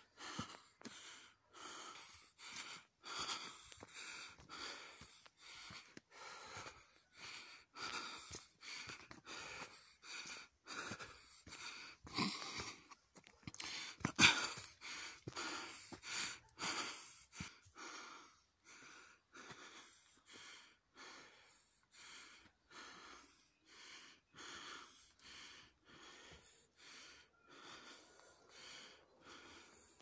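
A person breathing hard in quick, even puffs, about two a second, while walking briskly. A couple of the puffs about halfway through are louder.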